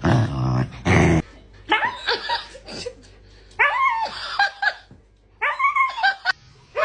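Dog vocalizing: a few short, low, rough barks or growls in the first second, then a run of short whining, howl-like calls that rise and fall in pitch.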